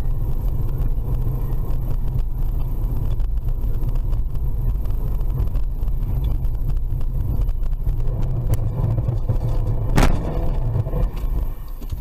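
Steady low rumble of a car's engine and tyres on the road, picked up by a dashcam inside the moving car. A sharp knock comes about ten seconds in, and the rumble gets quieter near the end.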